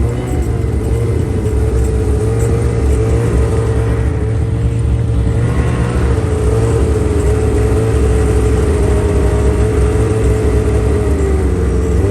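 A motor vehicle's engine running steadily at a constant pitch.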